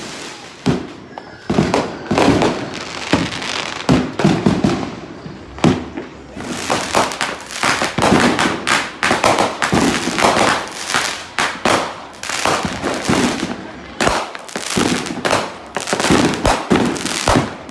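Many fireworks and firecrackers going off all around in an almost continuous run of bangs and crackling, thickest through the middle.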